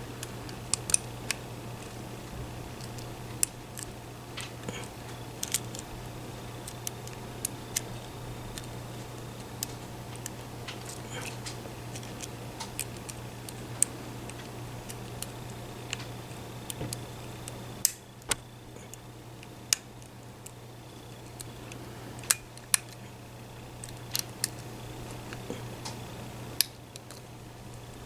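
Lock picks working in a lock: scattered small metallic clicks and ticks at an uneven pace, over a steady low electrical hum.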